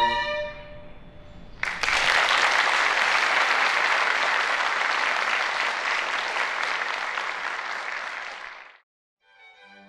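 Audience applauding, starting about a second and a half in after the last note of the string ensemble dies away, and cutting off abruptly near the end.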